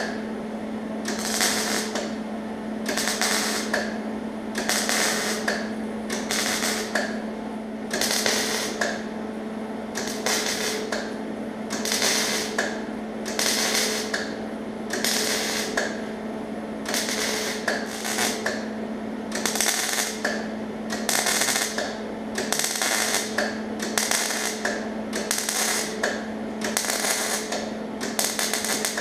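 MIG welder laying a row of short spot welds along a sheet-steel quarter-panel seam: about twenty brief bursts, one every second or two, each weld set next to the last to keep heat and warpage out of the panel. A steady hum runs underneath.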